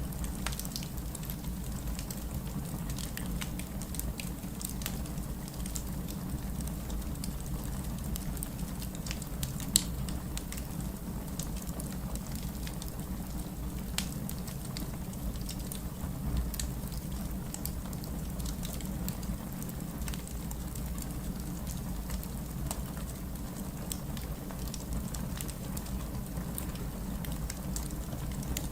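Crackling fireplace: a steady low rumble of flame with scattered crackles and pops, one sharp pop about ten seconds in.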